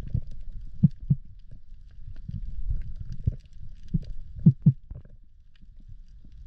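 Muffled underwater rumble picked up by a diver's camera in its waterproof housing, with a few dull knocks, the loudest as two quick pairs about a second in and about four and a half seconds in, and faint scattered clicks above them.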